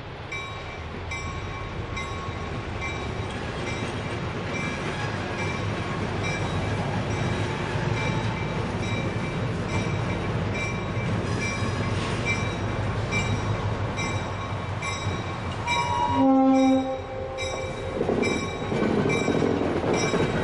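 EMD SW1200 switcher locomotive approaching and passing close, its V12 diesel running with a low rumble that grows louder. Its bell rings steadily at about one and a half strokes a second, and a short horn blast sounds about three-quarters of the way through.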